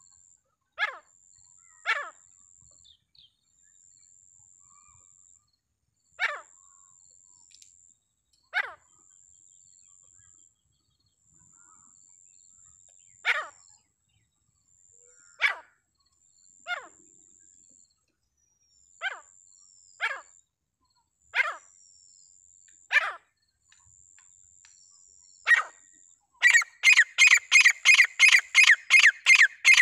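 Francolin (teetar) calling: single sharp, down-slurred notes every second or few seconds. Near the end these break into a fast, loud run of about four calls a second.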